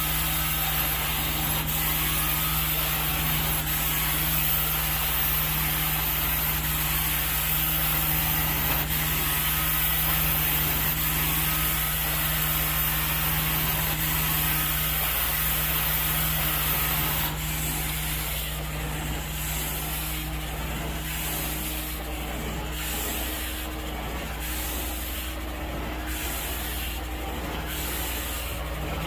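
Carpet-cleaning extraction wand (four-jet titanium) running on steam-cleaning equipment: a steady suction hiss over a low machine hum. About two-thirds of the way through, the high hiss drops and then rises and falls about once a second.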